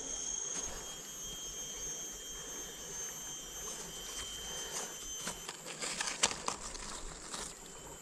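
Steady rush of a fast-flowing stream with a high, steady insect drone that stops about five and a half seconds in. After it, a run of clicks and rustles from hands working a cord among the bankside plants.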